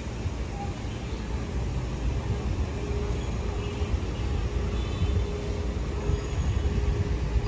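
Steady city street noise: traffic rumbling with a constant background hubbub.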